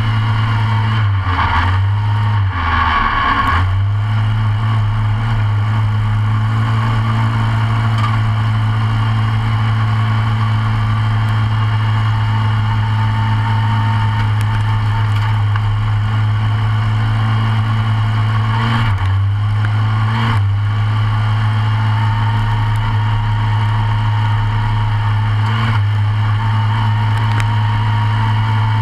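Briggs & Stratton racing engine of a short-course off-road kart, heard from inside the cockpit, running at a steady speed. Its note dips briefly and recovers twice, about a second in and again near twenty seconds in.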